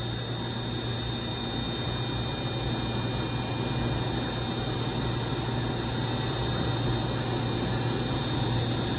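CNC lathe running steadily, a constant machine hum with a few thin high whines above it.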